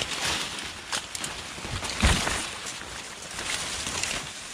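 Leafy brush and stems swishing and crackling as a person pushes through dense undergrowth on foot, with a heavy thump about two seconds in.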